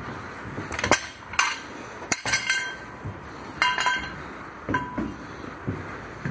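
Metal cargo-securing hardware clanking against the trailer's steel logistic track. It makes a series of sharp metallic clanks and clinks over about four seconds, some of them ringing briefly.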